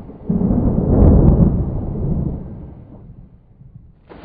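Deep rumble of thunder that swells sharply about a quarter second in and dies away over the next few seconds. A short, brighter hissing sound starts just before the end.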